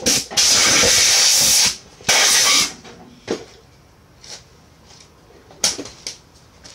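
Aerosol carb cleaner spraying into the motorcycle's cylinders in two bursts, a long one of about a second and a half and a shorter one, followed by a few scattered clicks.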